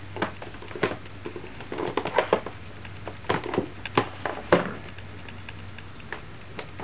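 A cardboard phone box handled and turned over on a desk: irregular taps, scrapes and rubs of card against fingers and the tabletop, the loudest a knock about four and a half seconds in.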